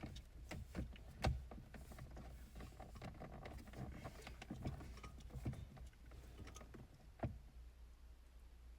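Plastic steering column covers being handled and fitted together: scattered light clicks and knocks at irregular intervals, with a sharper knock about a second in and another near the end.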